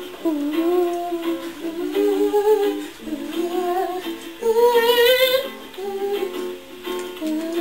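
A person humming a wordless tune, the melody gliding up and down, with a higher, wavering held note about five seconds in.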